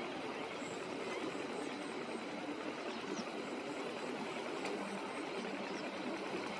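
Tractor engine running steadily while plowing, a constant even noise without pauses.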